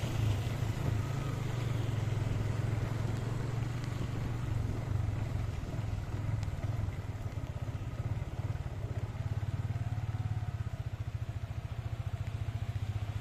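Motorcycle engine running while riding on a wet road, with hiss from the tyres on the wet surface. Near the end the engine settles into an idle with distinct, even pulses as the bike comes to a stop.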